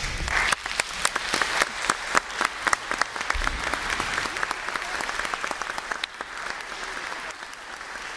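Audience applause, breaking out at once and fading away near the end.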